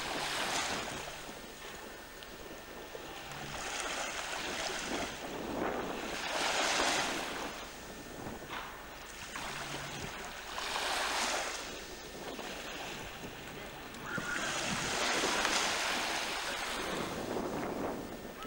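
Sea water washing and surging, swelling and fading every few seconds, with wind rushing over the microphone.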